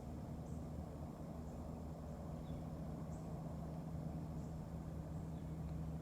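Outdoor woodland ambience: a steady low hum, with faint short high chirps at intervals of about a second.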